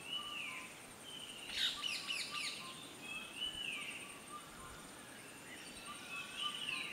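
Wild birds singing: a whistled phrase that falls in pitch, repeated about every three seconds, with a quick jumble of chirps about two seconds in. A faint, steady, high insect trill runs underneath.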